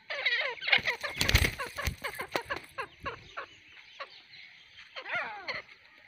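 Grey francolin calling in a rapid series of short notes, with a longer sweeping call about five seconds in. A few sharp knocks come about a second in.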